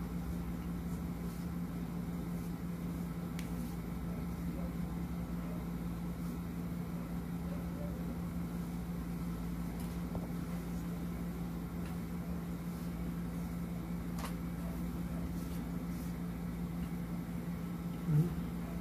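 A steady low mechanical hum, with a few faint clicks and a brief louder sound near the end.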